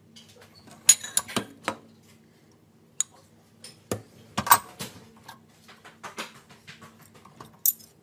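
Dishes and cutlery clinking and clattering in the racks of a compact countertop dishwasher as they are handled: irregular sharp knocks, the loudest about a second in and again around the middle, over a faint steady hum.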